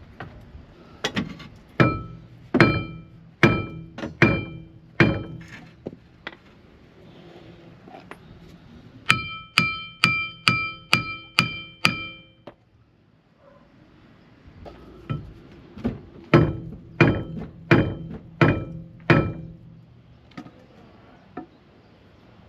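Repeated hammer blows on the rust-seized driveshaft in a Ford Transit Custom's wheel hub, coming in three runs with short pauses between. The middle run is a quick series of about seven strikes, each with a clear metallic ring.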